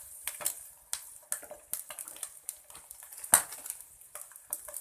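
Cooking utensil clicking and scraping against a frying pan with irregular sharp taps, the loudest about three and a half seconds in.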